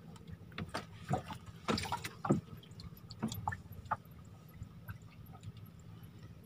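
Water dripping and lapping against a small wooden boat: scattered small splashes and drips over a faint steady low hum.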